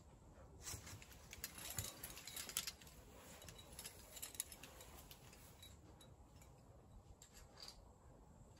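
Faint clicking and clinking of climbing hardware and rope being handled. A dense run of small sharp clicks fills the first few seconds, and a few scattered clicks follow.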